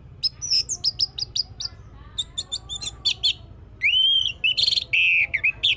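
Orange-headed thrush singing: two quick runs of sharp, high chips and twitters, then a rising whistle about four seconds in, followed by loud drawn-out notes near the end.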